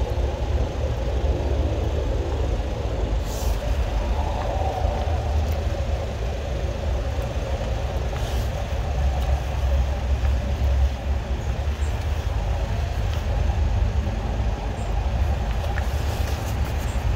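Drain jetting machine's engine running steadily with a low rumble while it jets a blocked drain through a rodding eye.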